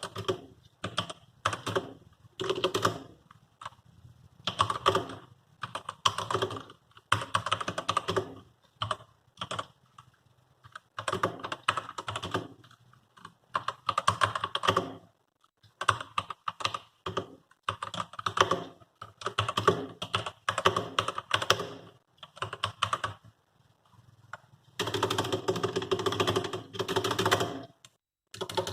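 A budget (about $40) computer keyboard being typed on, its keys clicking in quick bursts with short pauses between them. Near the end there is a longer, faster run of keystrokes.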